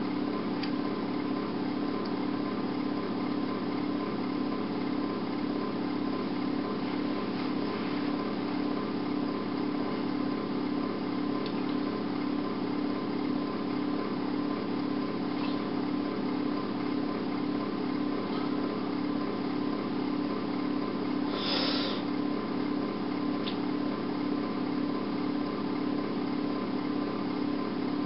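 Steady machine hum with a low drone and a thin higher tone, unchanging throughout, with a few faint clicks and a brief hiss about twenty-one seconds in.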